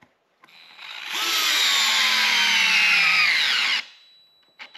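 DeWalt 8-volt gyroscopic cordless screwdriver driving a wood screw into a board. Its motor and gear whine builds up over about a second, holds for roughly three seconds with its pitch slowly falling, then stops abruptly once the screw is nearly all the way in.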